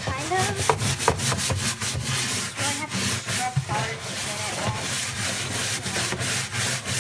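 Bristle scrub brush scrubbing the wet floor of a plastic litter box, in quick back-and-forth strokes, working baking soda and vinegar against stubborn urine stains.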